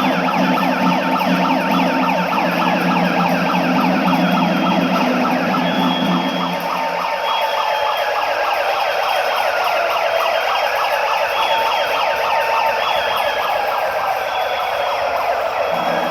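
Siren wailing, its pitch slowly rising and falling, over a steady low hum that stops about seven seconds in and returns at the end.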